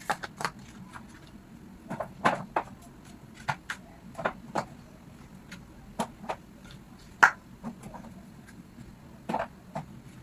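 Irregular clicks and knocks of groceries and containers being handled and put away, with the sharpest knock about seven seconds in.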